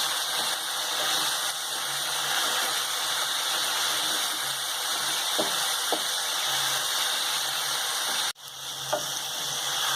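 Mint, coriander and green chilli paste sizzling steadily as it fries in oil, cooking until its raw smell is gone. The sound cuts out abruptly about eight seconds in and returns a moment later.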